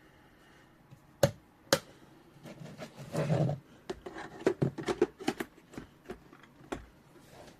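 Handling noises: two sharp clicks a little over a second in, a brief rustle, then a run of smaller clicks and taps.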